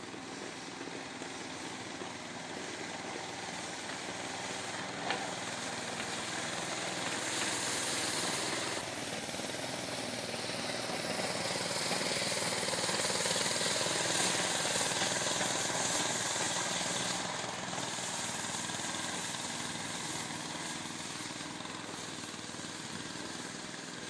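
Small Honda petrol engine of a walk-behind snow clearer running steadily, with a rushing noise from the snow being cleared that grows louder in the middle and eases off towards the end.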